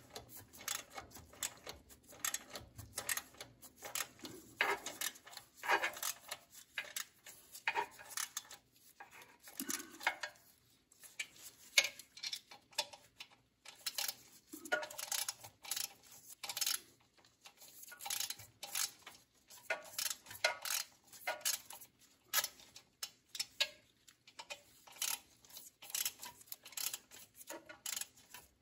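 Ratchet wrench clicking in short irregular runs, with light metal-on-metal clinks, as bolts on the belt-drive motor mount are tightened.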